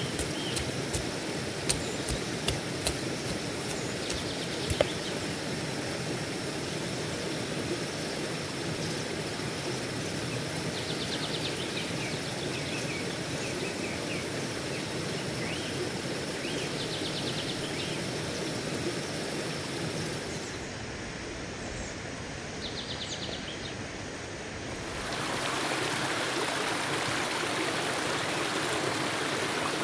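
A stream running steadily over rocks, growing louder about three-quarters of the way through. A few sharp taps come in the first few seconds, and short, fast chirps come now and then.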